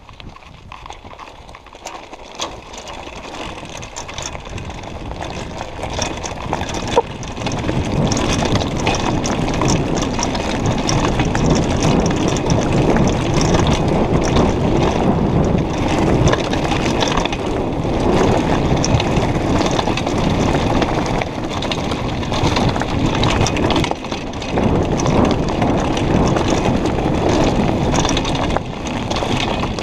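Mountain bike riding fast down a loose gravel trail, heard from a camera on the rider: wind rushing over the microphone and tyres crunching over stones, with rattling from the bike. The noise builds over the first several seconds, and there is a sharp knock about seven seconds in.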